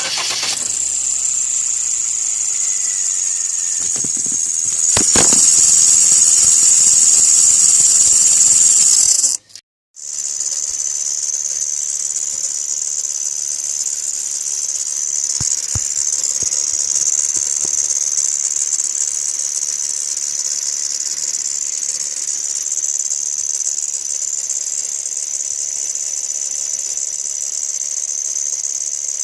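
A steady high-pitched whistle that holds one pitch. It grows louder from about five seconds in, breaks off for a moment near ten seconds, then carries on unchanged.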